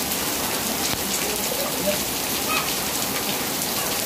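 Heavy rain pouring down steadily on a flooded lane and roofs, with a few faint voices in the distance.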